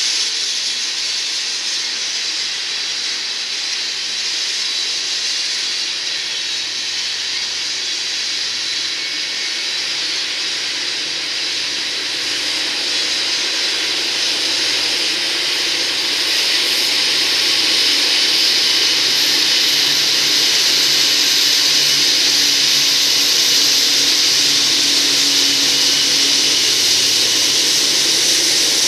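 A freight train's last tank cars roll by with a steady hiss of steel wheels on rail. About 13 seconds in, the two EMD SD40E pusher locomotives at the rear come by, adding a low diesel drone. The sound then grows louder and brighter as they shove the train.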